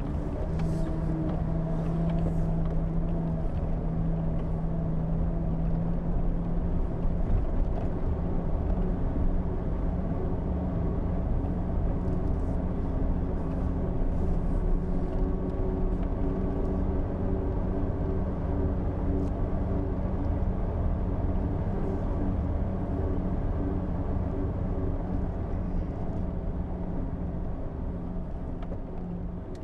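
Jeep Wrangler engine running steadily while it drives a rough dirt road, with low road rumble and a few light clicks and rattles.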